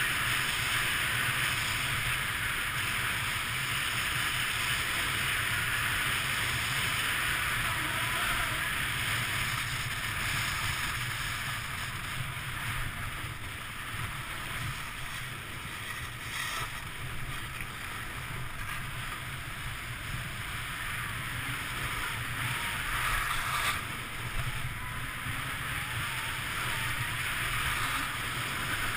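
Skis sliding and carving over packed snow in a continuous hiss, with wind rushing over the microphone while skiing downhill at speed.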